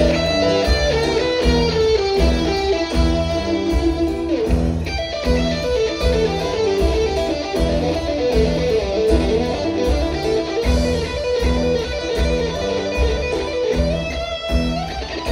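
Live rock band playing: electric guitar over bass, drums and keyboards, with a steady driving beat.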